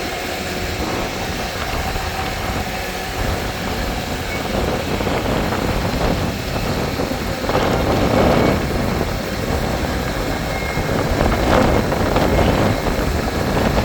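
An engine of construction machinery running steadily with a low rumble, growing louder in noisy swells about eight seconds in and again near the end.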